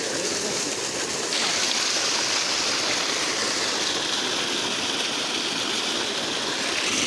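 Heavy stream of water gushing from a diesel-driven pump's outlet pipe and splashing into a concrete tank, a steady rushing that grows louder and brighter about a second in.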